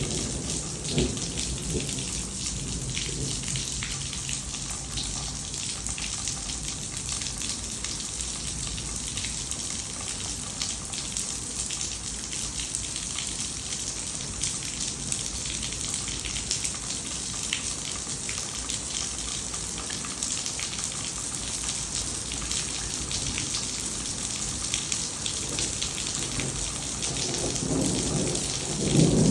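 Heavy rain pouring steadily, with a low rumble of thunder building near the end.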